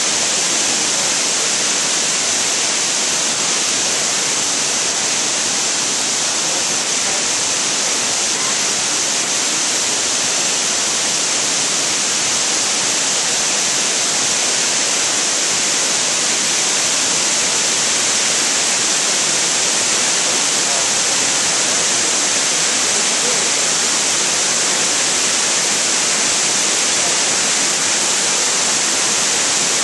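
Amicalola Falls, a tall mountain waterfall, cascading over steep rock ledges: a loud, steady rushing hiss of falling white water that holds unchanged throughout.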